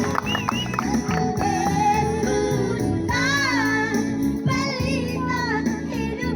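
A song: a singing voice carrying a wavering melody over steady instrumental accompaniment.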